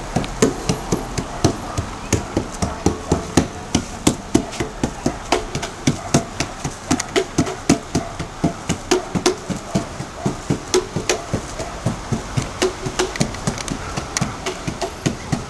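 A rapid, uneven series of sharp knocks, about three to four a second.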